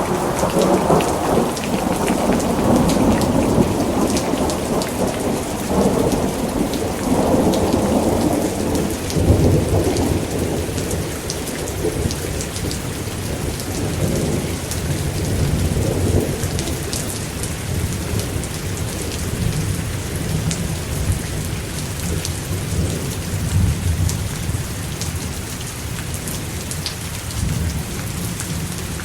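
Heavy rain falling steadily, with a thunderclap right at the start that rolls on for about ten seconds and then fades away in weaker rumbles over the next dozen seconds.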